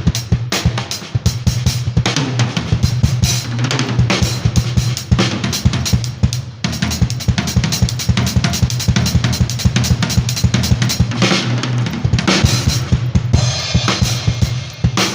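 Drum kit played in a fast, busy pattern: bass drum, snare and cymbals struck in quick succession, without a break.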